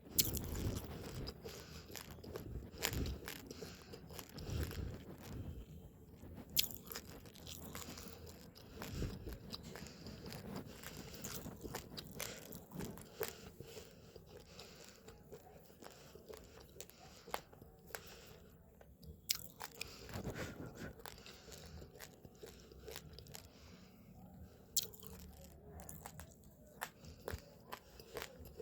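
Uncooked rice grains being chewed and crunched between the teeth: a continuous run of small, sharp, irregular cracks, with a few louder crunches.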